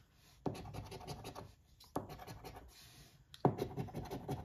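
A large metal coin scraping the latex coating off a scratch-off lottery ticket on a table, in three short bouts of rapid back-and-forth strokes starting about half a second, two seconds and three and a half seconds in.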